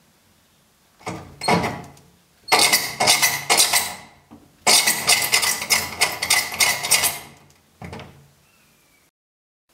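Loud rattling and clattering of hard objects in four bursts: a short one about a second in, two long ones of about two seconds each, and a brief one near the end.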